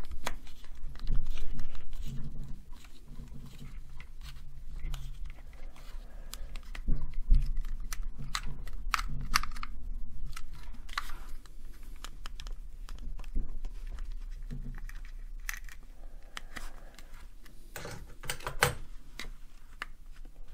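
Handling noise from a plastic plug-in transformer power supply and its lead being turned over in the hands: scattered light clicks and rustles, with a couple of sharper clicks near the end, over a steady low hum.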